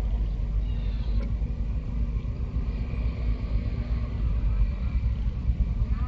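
Steady low outdoor rumble, with a faint thin high tone held for a couple of seconds in the middle.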